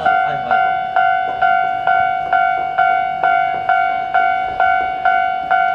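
Railway level crossing warning bell ringing, an even ding about twice a second with each strike fading before the next: the crossing is closed for a passing train.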